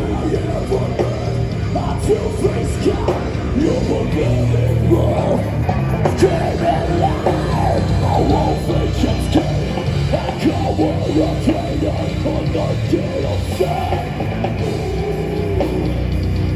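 Heavy metal band playing live: distorted electric guitar, bass guitar and drums, with a male vocalist singing over them, loud and continuous.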